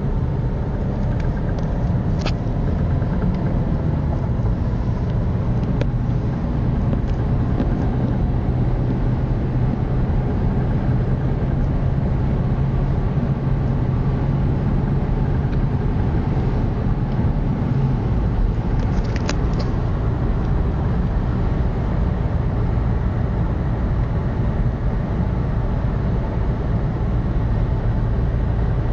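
Alfa Romeo 147 engine running steadily, carrying the suspect noise that the owner says appeared after the timing belt was changed. A couple of short sharp clicks stand out, one about two seconds in and another past the middle.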